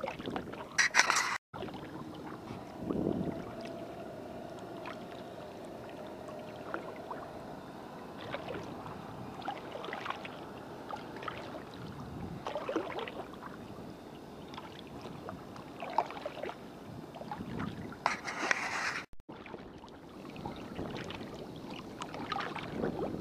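Kayak paddle strokes dipping into calm lake water, with splashes and drips at an uneven pace of one every second or two. Two brief louder rustling bursts cut through, about a second in and again about eighteen seconds in.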